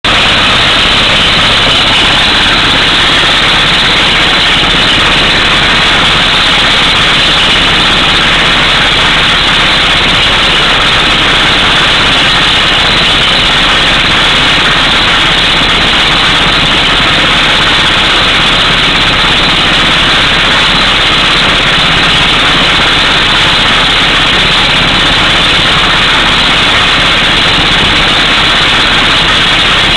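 Air hammer drilling through solid rock, running continuously with a rapid hammering, over the drill truck's engine.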